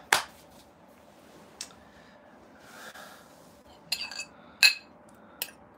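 A metal fork clinking against a plate a few times, in short sharp taps, the loudest a little past the middle.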